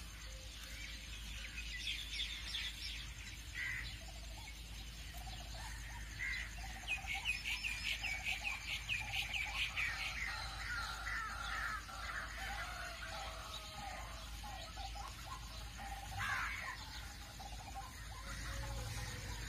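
Several birds chirping and calling, with a quick run of chirps in the middle, over a steady low hum.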